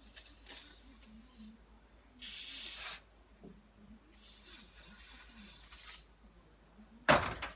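Aerosol can of penetrating spray, sprayed in three bursts onto a stuck engine part to loosen it. The first burst is faint and the last is the longest, about two seconds. A sharp knock comes near the end.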